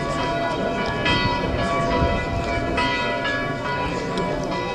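Bells ringing, a peal of overlapping strikes that keep sounding and ringing on.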